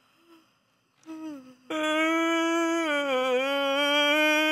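A performer's long, drawn-out waking-up "ahh" as a stretch, starting about a second and a half in after a short sliding sound. It is held on one steady, loud pitch with a slight dip in the middle.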